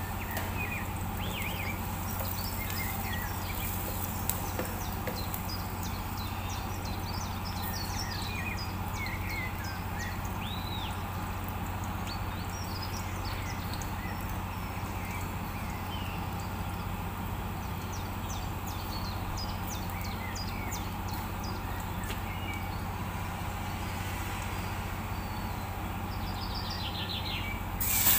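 Minced aromatics sautéing in oil in a stainless-steel pot over a gas burner: a steady low hum under a soft crackle, with scattered faint high chirps. Near the end a loud sizzle starts as raw chicken breast goes into the hot oil.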